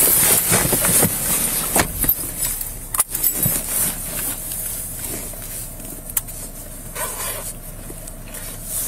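Body-worn camera rubbing and scraping against the officer's uniform as he moves about in a patrol car's driver's seat, with a few sharp clicks and knocks from handling, about two and three seconds in and again after six seconds.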